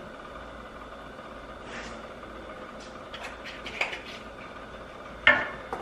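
Light clicks and taps of spice containers being handled while seasoning eggs in a skillet, with a sharper knock about five seconds in, over a faint steady kitchen background.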